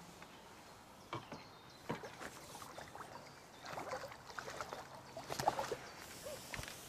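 Faint, scattered water splashes and small knocks, busier after a few seconds in: a hooked carp splashing at the surface as it is drawn in on a pole toward the landing net.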